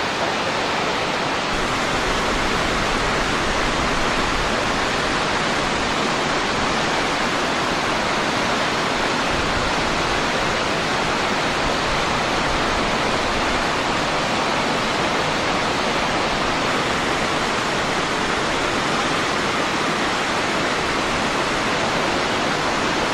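Waterfall rushing: a steady, loud roar of falling water, unbroken throughout.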